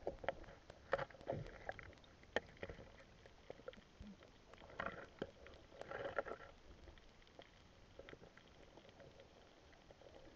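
Faint, irregular water splashing and sloshing, broken by scattered sharp clicks and knocks, with a cluster of louder splashes about five to six seconds in.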